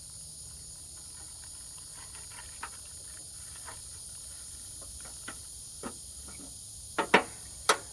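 Steady high hiss in the background with scattered light clicks, then a few sharper knocks near the end: tools being moved about while someone rummages for a screwdriver.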